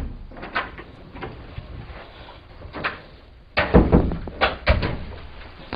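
Exam-room door being opened and closed: a few light clicks of the handle and latch, then louder knocks and thuds a little after halfway as the door is pushed shut.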